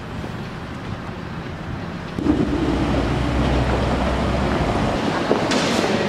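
Busy street and station ambience: a road vehicle's low engine rumble swells and passes from about two seconds in, with wind on the microphone. A brief hiss comes near the end.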